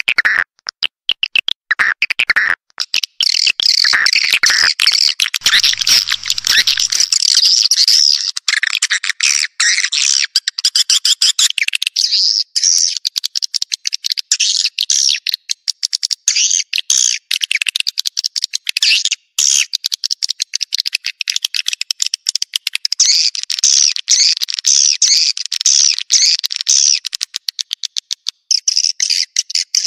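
Swiftlet call recording used as a lure sound ('suara panggil') to draw swiftlets into a nesting house: dense, rapid high chirping and twittering, broken by many short gaps. From about seven seconds in, nothing low is left in the sound.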